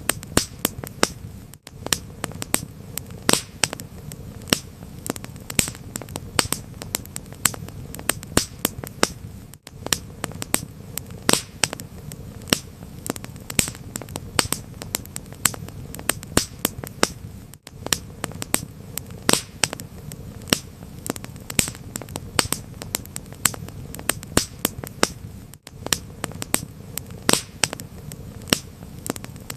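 Wood fire crackling in a fireplace: sharp, irregular pops and snaps over a low, steady rumble, with a brief dropout about every eight seconds.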